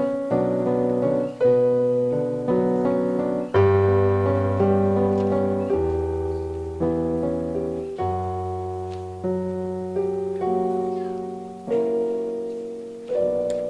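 Piano playing slow hymn chords on its own, about one chord a second, each struck and left to fade.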